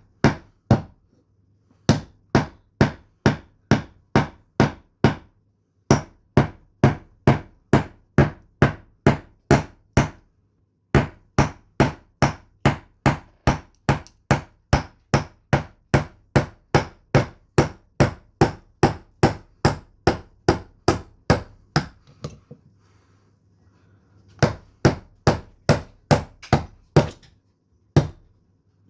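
A knife being batoned into a log, its spine struck over and over: loud, sharp knocks about two a second, in several runs with short pauses between them.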